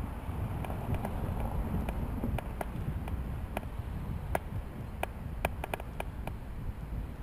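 Bicycle ridden uphill with a steady low rumble of tyres and wind on the microphone. Irregular sharp clicks and rattles come as the bike rolls over cobblestones, thickest in the middle.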